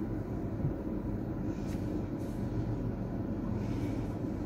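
Steady low rumble of a car heard from inside the cabin, with a few faint rustles.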